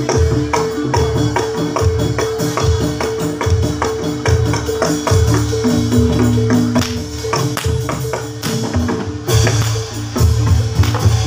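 Live gamelan accompaniment for a jathilan trance dance: drums and struck metal gongs and metallophones playing a dense, steady beat over held ringing tones.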